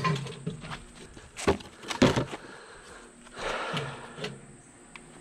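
Knocks and clunks of a plastic bucket and a drum-type chicken plucker being handled and set in place. The loudest knocks come close together about two seconds in, followed by a brief rustle and a couple of small clicks.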